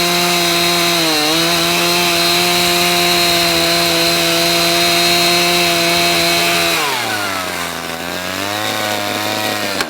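Petrol chainsaw engine running at high revs with a steady, high-pitched drone and a brief dip about a second in. About seven seconds in, the revs fall away to a lower speed.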